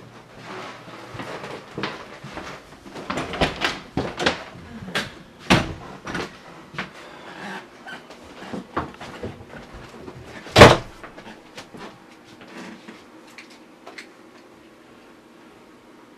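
A series of knocks and clatters, as of wooden furniture doors or drawers being opened, shut and handled. One hard thump about ten and a half seconds in is the loudest. The knocks thin out over the last few seconds.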